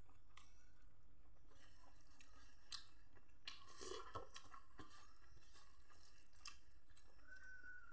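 Faint eating sounds: fingers mixing and squishing rice and dal on a metal plate, with soft chewing. Scattered small clicks and scrapes, busiest about halfway through.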